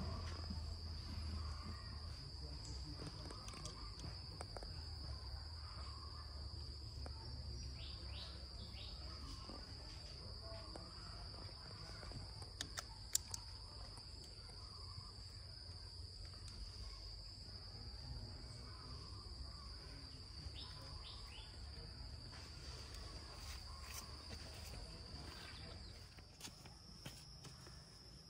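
Steady high-pitched insect drone, with a low rumble underneath and a few sharp clicks about thirteen seconds in.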